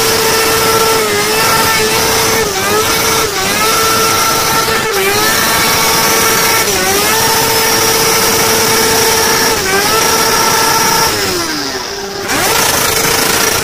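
Sport motorcycle engine held at high revs during a stationary burnout, the rear tyre spinning against the ground. The pitch holds steady with brief dips every second or two, winds down about eleven seconds in, then revs back up near the end.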